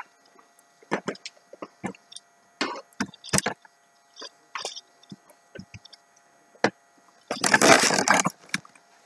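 Cats scrambling over fabric and wood: scattered light knocks, taps and claw scrapes, then a louder rustling scrape lasting about a second near the end.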